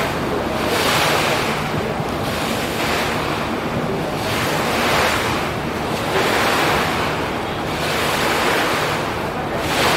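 River water rushing and splashing, surging about once a second, with wind on the microphone and a low steady engine drone underneath.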